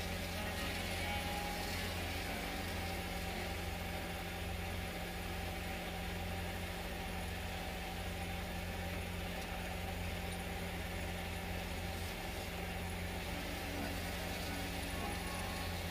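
Wood-turning lathe's motor running steadily with a constant low hum.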